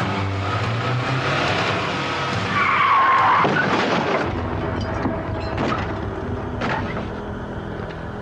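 A car's tyres screech in a skid, loudest about three seconds in, as the car hits a pedestrian; a few sharp knocks follow.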